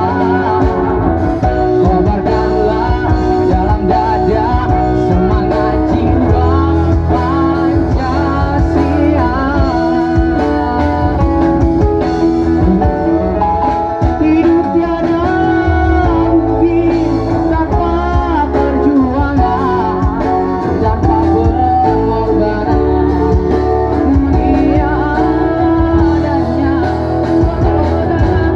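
Band playing a song, with guitar and a voice singing.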